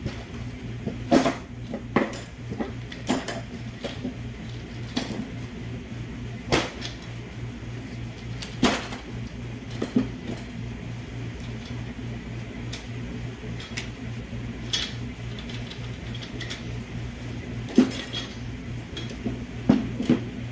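Steel and friction clutch plates from a 6L80 automatic transmission's 3-5-reverse clutch pack clinking against each other and the clutch drum as they are lifted out and laid on a wooden table, in irregular metallic clicks every second or so. A steady low hum runs underneath.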